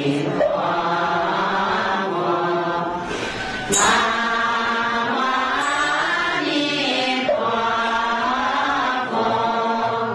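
Buddhist devotional chanting: a sung melody of long, drawn-out notes that glide slowly in pitch, with a brief break about four seconds in.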